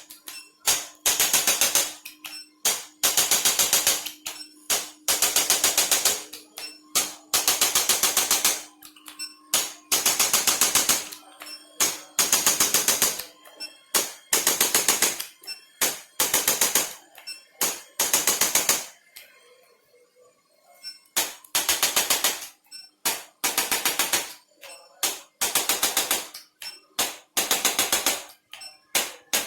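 Handheld chiropractic adjusting instrument firing short bursts of rapid clicks, about ten to a dozen a second, each burst lasting about a second. The bursts repeat every second or two, with a pause of about two seconds roughly two-thirds of the way through.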